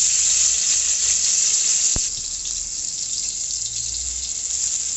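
Chopped onions and tomatoes hitting hot oil in a pan: a loud hissing sizzle that starts all at once and eases a little after about two seconds. A single sharp knock about two seconds in.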